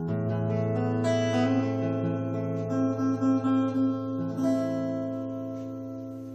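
Acoustic guitar playing a song's introduction: strummed and picked notes over a held low bass note, slowly fading away near the end.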